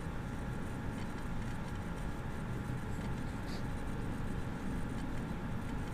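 Steady room tone: an even low hum and hiss with no distinct events.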